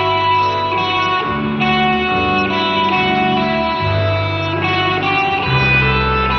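A student ensemble of acoustic and electric guitars with violins playing a piece, with held chords over a low bass line that moves to a new note every second or so.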